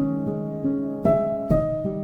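Background music: a slow, gentle melody of notes that each start sharply and ring on, one after another.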